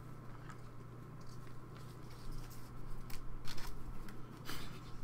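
Trading cards handled in gloved hands: a few brief scratchy rustles and slides of card stock, over a steady low electrical hum.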